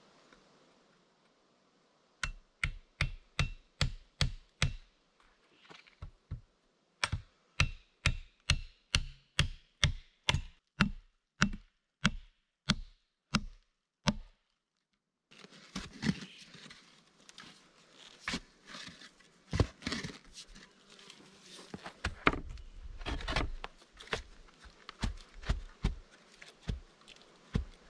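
A tool striking wood over and over in a steady rhythm, about three blows a second at first, then after a short pause about two a second. After a brief cut, irregular thuds and rustling follow.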